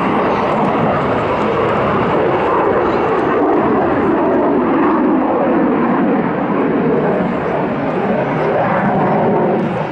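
A Saab JAS 39 Gripen fighter's single Volvo RM12 turbofan engine at display power. It makes loud, steady jet noise that does not let up as the jet manoeuvres overhead.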